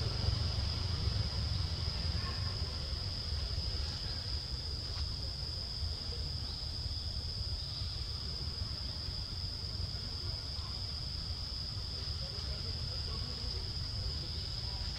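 Outdoor insect chorus: a steady high-pitched drone holding one pitch throughout, over a continuous low rumble.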